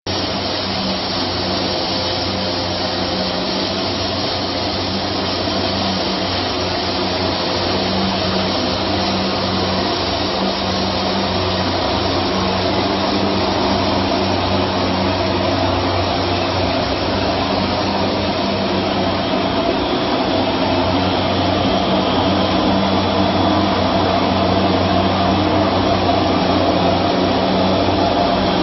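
Aluminium wire drawing machine line running: a steady mechanical hum with a low drone and a broad hiss, growing slightly louder toward the end.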